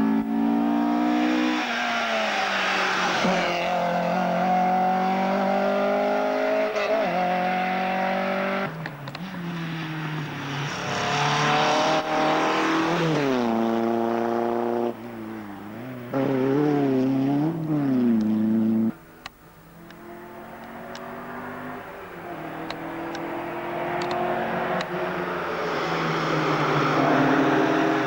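Rally car engines at full throttle as several cars pass one after another, the pitch climbing and falling back at each gear change. Partway through, the revs flick rapidly up and down as a car brakes and takes a corner. After a sudden drop about two-thirds of the way in, another car's engine is heard approaching and growing louder.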